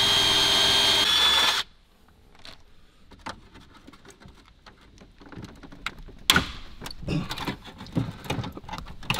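A cordless Dremel-style rotary tool with a cutting wheel runs at a steady high whine on a truck's plastic dashboard, then cuts off suddenly about a second and a half in. Scattered plastic clicks and knocks follow as hands work the cut dash panel, with one sharp knock about six seconds in.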